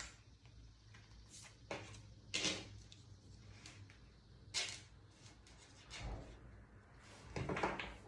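A deck of tarot cards being shuffled by hand: irregular soft swishes and taps of the cards, one every second or two, with a quick cluster near the end.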